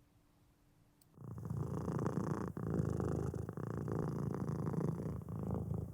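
Domestic cat purring steadily and close up, starting about a second in.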